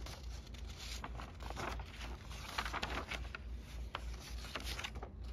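A sheet of paper, perforated by a sewing-machine needle, rustling as it is handled, in irregular crisp scrapes and crinkles.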